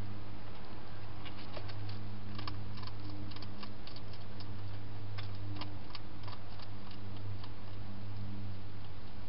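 Wild hedgehog feeding at a dish: a run of irregular crisp clicks of chewing that starts about a second in and stops near the end, over a steady low hum.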